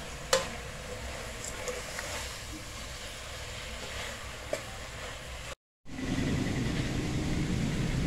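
Metal ladle stirring fried slices in a steel pot, over a steady hiss. The ladle strikes the pot with one sharp clink about a third of a second in, followed by a few lighter clinks. The sound drops out briefly before six seconds and returns as a louder low rumble.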